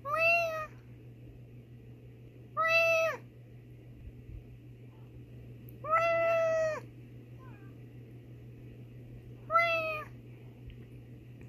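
Meows traded back and forth between a person imitating a cat and a long-haired tabby cat answering: four meows a few seconds apart, the third the longest.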